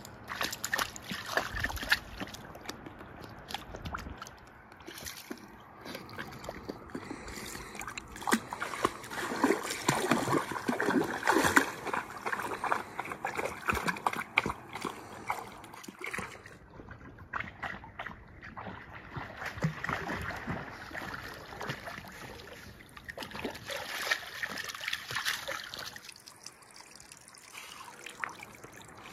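A dog splashing through a shallow river, with irregular splashes and sloshes over the running water.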